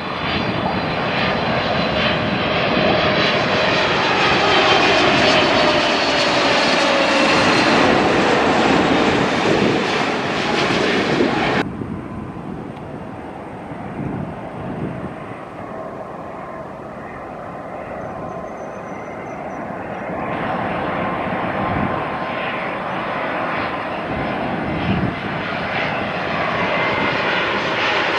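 Jet airliners on final approach: a twin-engine jet's turbofans roar loudly as it passes, the engine tones sliding down in pitch. About a third of the way in the sound cuts suddenly to a quieter Airbus A330 approaching, growing louder toward the end.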